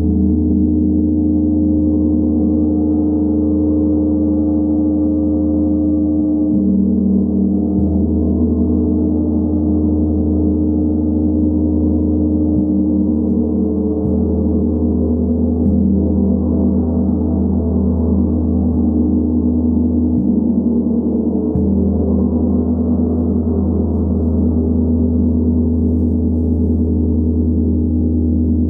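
A large 90 cm Tibetan gong with a hand-hammered face, kept sounding with a soft mallet. It rings in an unbroken, even wash of deep overlapping tones whose mix shifts every few seconds.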